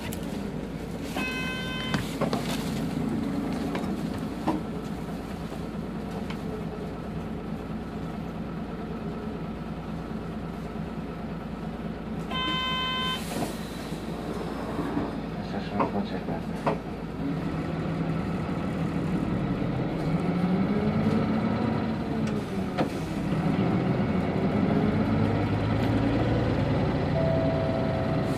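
Hino BJG-HU8JLFP hybrid city bus running along its route: steady engine and road noise, with two short electronic chimes, about a second in and again about twelve seconds in. In the second half the drivetrain's pitch rises and falls as the bus speeds up and slows.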